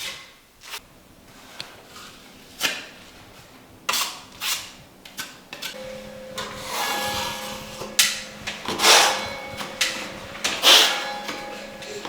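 Irregular knocks and clatter of hand work with tools and building materials. A steady pitched tone sets in about six seconds in and carries on under the knocks.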